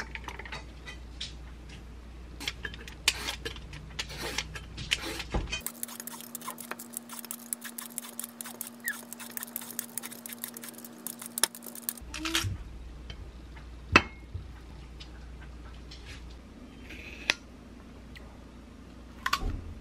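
Kitchen handling sounds: ice and glass clinking as an espresso shot is poured into an iced glass mug, then a rapid fine scraping of a hand peeler taking the rind off a Korean melon over a faint steady hum, then light clinks of a fork on a plate while the melon is eaten.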